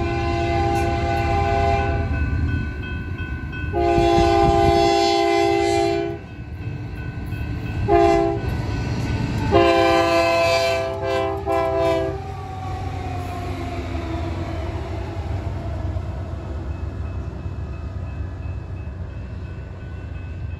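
Locomotive air horn on a rebuilt Union Pacific C44ACM, a chord of several notes, sounding four blasts, long, long, short, long: the grade-crossing signal. Under and after it, the rumble of the locomotives runs on once the horn stops about twelve seconds in.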